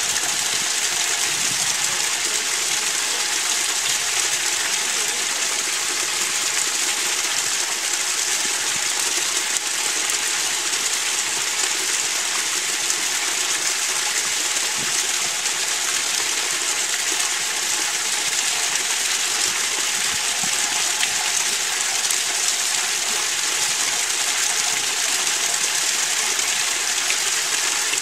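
Two streams of water pouring from stone channel spouts and splashing onto the stone below, a steady unbroken rushing hiss.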